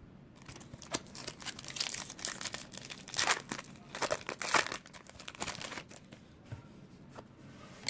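A baseball card pack's wrapper being torn open and crinkled, a run of crackling rustles that dies down to faint handling about six seconds in.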